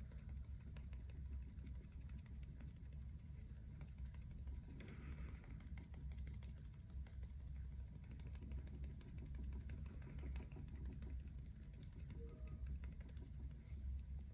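Faint, quick, irregular soft taps of a makeup sponge being dabbed against the skin to blend foundation, over a low steady hum.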